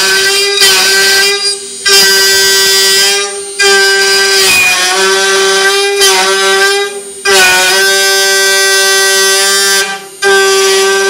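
CNC 3040 router's spindle and end mill whining at a steady high pitch with a stack of overtones while cutting a 3 mm deep pass into a metal plate. The whine briefly dips or drops away four or five times as the cut loads and unloads.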